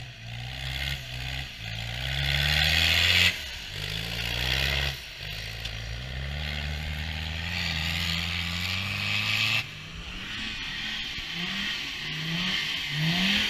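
Off-road competition vehicle's engine revving hard in repeated surges as it pushes through deep mud, the pitch climbing and falling, with several short rising revs near the end. The sound jumps abruptly a few times.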